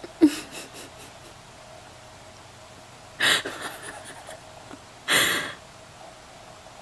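Sounds from the toddlers' cribs coming through a baby monitor's speaker over a faint steady hum. A sharp click comes first, then two short breathy bursts about two seconds apart.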